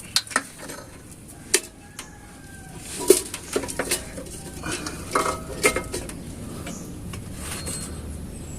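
Metal tools and parts clinking and clanking in irregular knocks during clutch work, the loudest about three seconds in and a run of knocks around five to six seconds.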